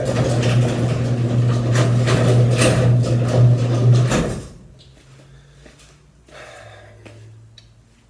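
Overhead garage door opener running the door closed, answering the newly programmed remote: a steady motor hum with the clatter of the door travelling, which stops about four seconds in.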